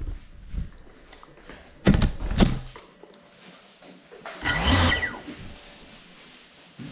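Small FPV camera drone coming down indoors: a clatter of knocks and thumps about two seconds in, then a short burst with a rising whine a little past the middle.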